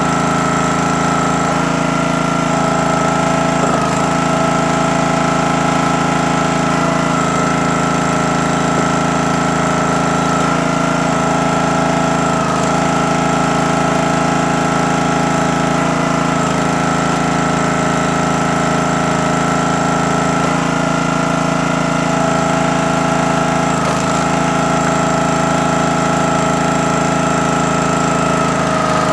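Small gas engine of a CountyLine 28-ton log splitter running steadily, driving the hydraulic pump, with a few faint knocks and slight changes in its note.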